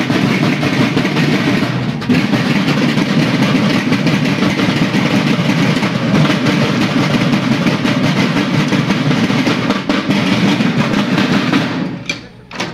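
Children's drum corps beating marching snare drums together in dense, continuous drumming that stops abruptly near the end.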